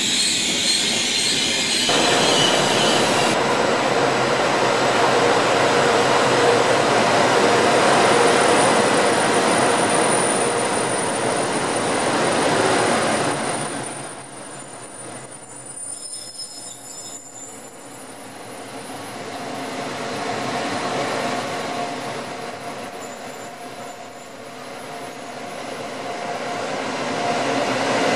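Trenitalia Intercity train, its coaches and an E.402 electric locomotive, running past on the rails. The noise eases about halfway through, then builds again near the end.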